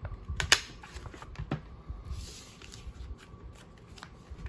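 Paper planner inserts rustling and being shuffled while they are fed into a six-hole punch, with a few sharp clicks and knocks, the loudest about half a second in.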